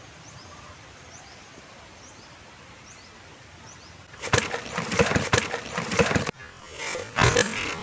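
Quiet outdoor background with faint high chirps repeating every second or so. About four seconds in, loud rustling and clattering handling noise close to the microphone runs for about two seconds and stops abruptly, then comes back briefly near the end.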